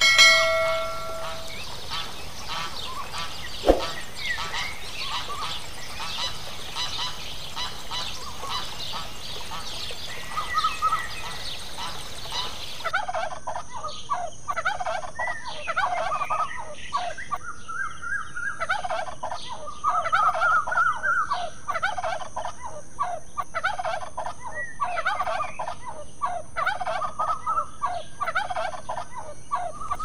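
Assorted bird chirps and calls for the first dozen seconds. Then a white domestic turkey gobbles over and over, in rapid rattling bursts, through the rest of the stretch.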